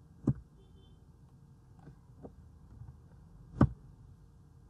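Scattered clicks of a computer mouse and keyboard, a few faint ones between two sharp louder ones about three seconds apart, over a faint steady hum.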